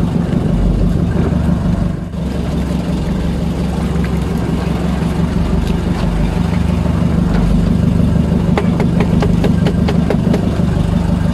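Small fishing boat's engine idling steadily with a constant low hum. A run of sharp clicks and knocks comes about eight to ten seconds in.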